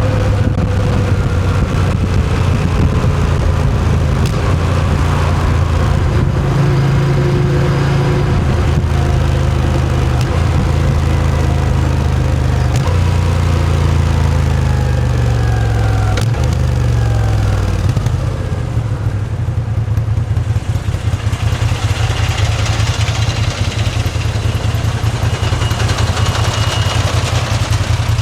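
Moto Guzzi V7's air-cooled transverse V-twin engine running under way, its note stepping down between about halfway and two-thirds through as the bike slows. It then runs steadily at low revs for the rest.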